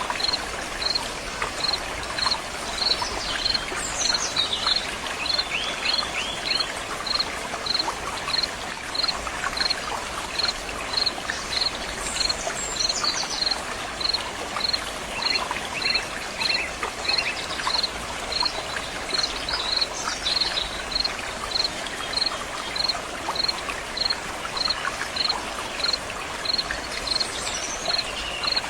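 Water running steadily, as in a stream. A high chirp repeats evenly about two to three times a second, and a bird sings a short falling phrase about every eight seconds.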